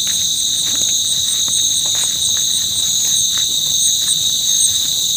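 Dense chorus of night insects: a steady, shrill, high-pitched trilling from many insects at once. Over it, one insect chirps in short pulses, about three a second.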